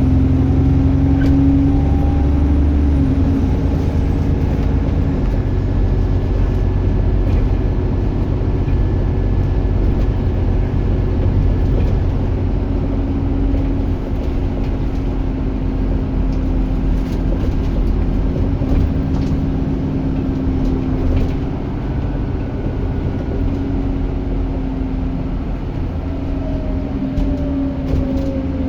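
Bus engine and drivetrain heard from on board while the bus is under way: a steady low drone with a constant tone, and a higher whine that comes and goes, the turbocharger whine this bus is known for. Near the end a whine falls in pitch as the bus slows.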